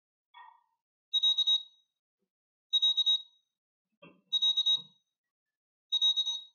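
Super Complete Selection Animation D-Ark Digivice toy beeping through its small speaker as it starts up: four high, trilling beeps about a second and a half apart, with fainter short chirps between them.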